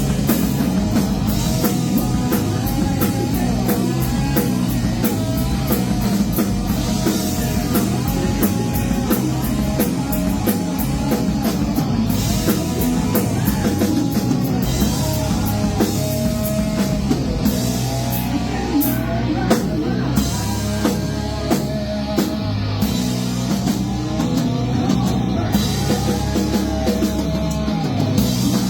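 Rock band playing: a steady drum kit under a gliding, wavering lead line.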